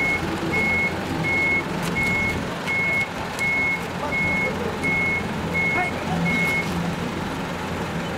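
A truck's reversing alarm: one high beep repeating about once every 0.7 seconds, stopping shortly before the end, with the truck's engine running underneath.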